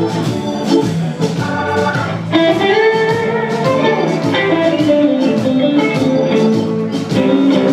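Live electric blues band: a lead electric guitar plays a solo with a long note that bends up and back down a little over two seconds in. Hammond B-3 organ, bass and drums play behind it.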